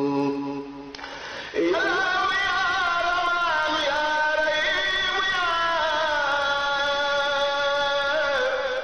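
Unaccompanied chanted singing of a devotional poem. A voice holds long, wavering, ornamented notes. One phrase ends about a second in, and the next slides up into a long sustained line.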